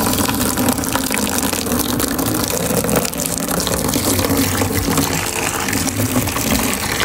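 Hot water poured in a steady stream into a bowl of shampoo, splashing and gushing as the bowl fills.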